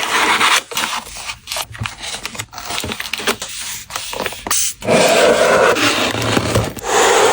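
Packing materials being handled: dense rustling and scraping, with longer loud rasps at the start and again from about five seconds in.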